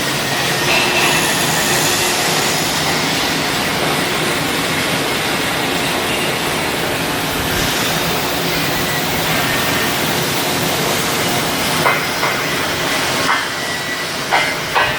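Steady, loud machinery noise with faint steady tones in it, and a few short sharp knocks near the end.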